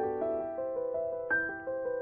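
Soft background music: a gentle piano or keyboard melody, one note after another, some ringing on.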